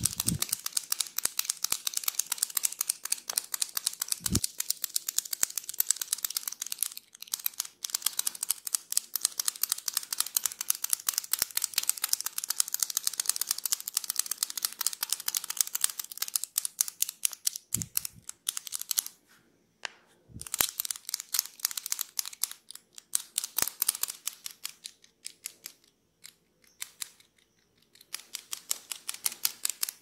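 Rapid fine crackling and scratching from a metal pen-shaped massage tool worked over the neck and shoulder, close to the microphone. It runs without a break for about nineteen seconds and then comes in short bursts with pauses. A few dull thumps fall about four seconds in and again around eighteen and twenty seconds.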